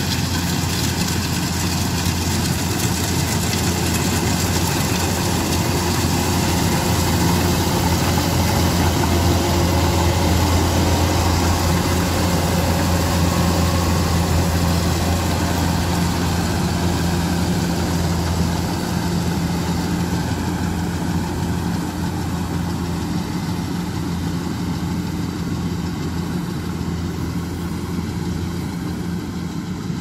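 Kubota DC-105X combine harvester running steadily as it cuts and threshes rice: a constant diesel engine hum under a dense mechanical whirr. It grows louder toward the middle as the machine passes close, then fades over the second half as it drives away.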